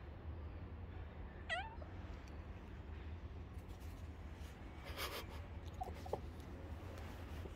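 Domestic tabby cat giving one short meow about a second and a half in, over a steady low background hum. There is a brief rustle about five seconds in, while the cat rolls on the tiled step.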